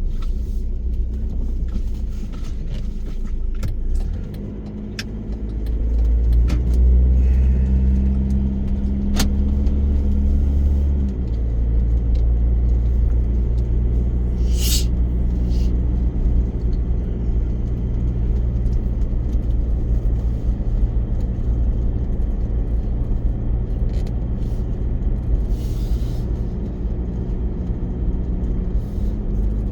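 Car engine and road rumble heard from inside the cabin while driving. About six seconds in the engine note swells and climbs as the car accelerates, then drops back and settles to a steady run about eleven seconds in.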